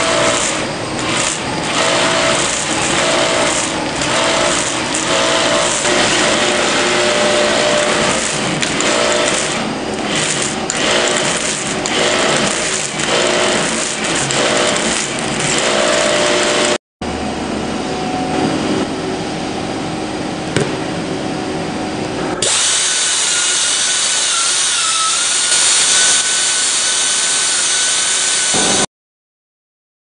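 Hand-held air-powered rotary tool cutting and grinding away rubber around a damaged area of a large off-the-road tyre, opening the injury out to prepare it for a vulcanized repair. It gives a steady whine with a rhythmic pulsing as it bites. About halfway through the sound drops out briefly and comes back duller, then near the end turns louder, hissier and more high-pitched, and it stops shortly before the end.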